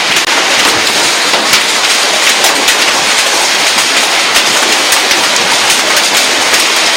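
Heavy rain pouring steadily: a dense hiss full of sharp drop impacts.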